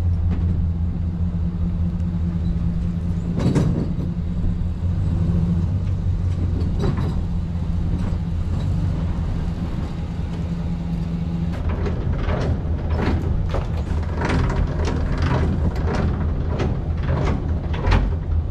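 Pickup truck engine running steadily at low revs while it backs up to a gooseneck trailer, with a sharp knock about three seconds in and another a few seconds later. From about halfway through, a quick, irregular run of short sharp sounds plays over the engine.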